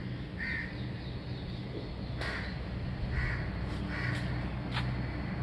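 Crows cawing: short caws repeated about once a second, over a low steady background rumble, with a couple of sharp clicks.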